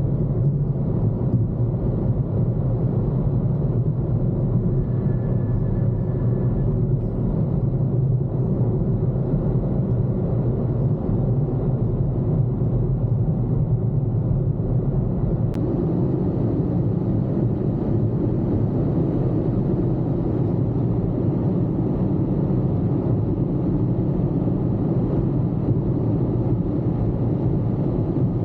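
Steady road and engine noise inside a car cruising on the highway, a low rumble with tyre hiss. About fifteen seconds in there is a short click, and the hiss turns a little brighter.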